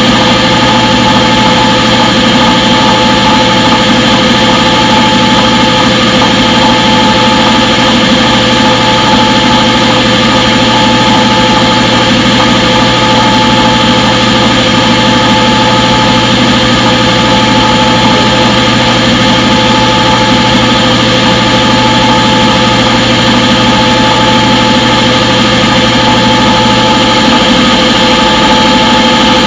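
Front-load washing machine in its spin cycle: a loud, steady whir with several constant whining tones that hold unchanged.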